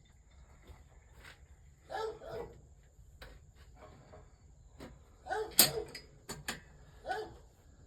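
A dog barking three times, the middle bark the loudest, with a few sharp clicks in between.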